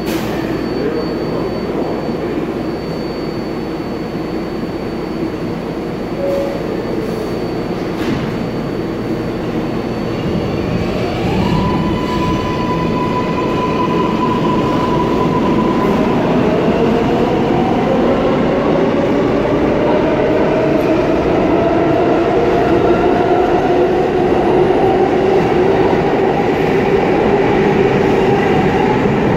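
Kawasaki R142A subway train pulling out of the station. Its electric traction motors give a whine that slides up to a held pitch about eleven seconds in, then rises slowly in pitch as the train accelerates, over a growing rumble of wheels on the rails.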